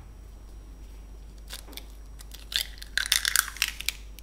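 Hen's eggshell being pried apart by hand, a rapid run of crisp crackles and small snaps of breaking shell that starts about two and a half seconds in.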